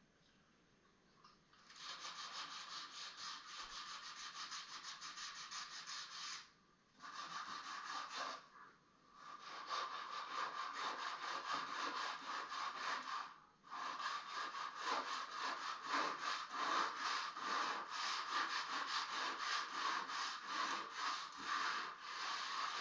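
Sandpaper rubbed by hand on an old wooden fireplace mantel in quick back-and-forth strokes, sanding off old paint and stain. It starts a couple of seconds in, pauses briefly three times, and stops abruptly at the end.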